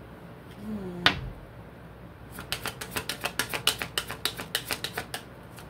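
A deck of cards being shuffled by hand, a quick run of light clicks at about seven a second that starts a couple of seconds in. It follows a single sharp click and a brief murmur about a second in.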